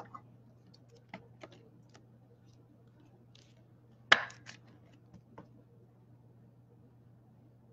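Trading cards being handled on a tabletop: scattered light clicks and taps, the loudest a sharp click about four seconds in, over a faint steady hum.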